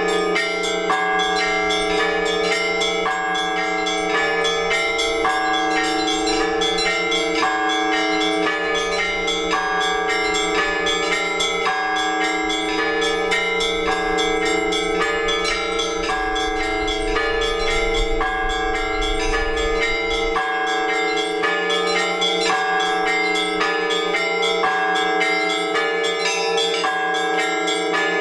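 Orthodox church bells ringing a peal: several bells of different pitches struck by hand in a quick, repeating rhythm, bright small bells chiming over the long-ringing tones of larger bells.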